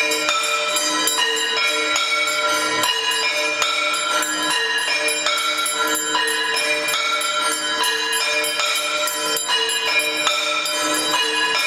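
Devotional aarti music with bells ringing continuously in quick repeated strokes over a steady sustained tone.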